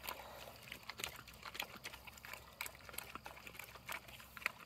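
A large pig chewing and smacking feed off the ground: a run of faint, irregular short clicks.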